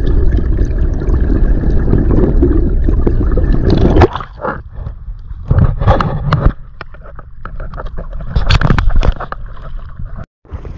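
Water rushing and gurgling, muffled as heard through an action camera held underwater. About four seconds in, the muffling stops and there are several separate splashes and water sloshing on the camera as it comes out of the water.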